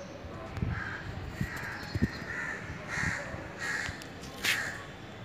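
Crows cawing, about six harsh calls spaced out over the few seconds, with a few low thumps in between near the start.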